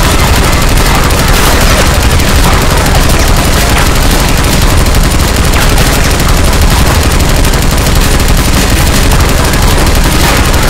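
Sustained rapid machine-gun fire sound effect, loud and dense without a break.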